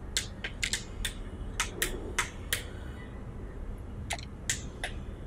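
Plastic push buttons on top of an ANJANK AC-183 alarm clock clicking under a fingertip as the date is stepped through. There are about nine quick presses in the first two and a half seconds, a pause, then three more near the end.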